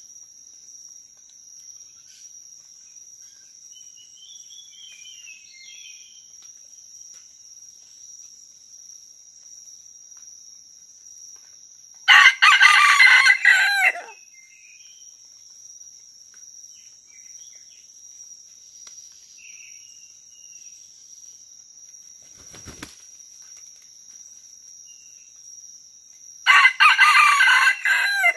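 Red junglefowl rooster crowing twice, each crow lasting about two seconds, roughly fourteen seconds apart. A steady high-pitched insect drone runs underneath, with faint bird chirps.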